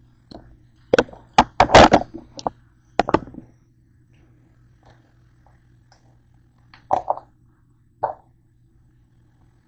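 Knocks, clicks and scrapes of things being handled close to the microphone on a kitchen counter: a plastic Cool Whip tub moved about and the camera set down. A quick cluster of knocks comes about a second in, then two single knocks near the end, over a faint steady hum.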